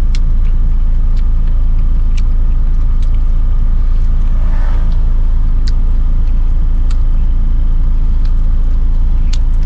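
Steady low rumble of an idling vehicle engine, with a few light clicks over it.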